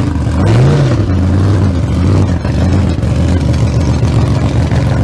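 A car engine runs loudly and steadily, with a quick blip of the throttle, a brief rise and fall in pitch, about half a second to a second in.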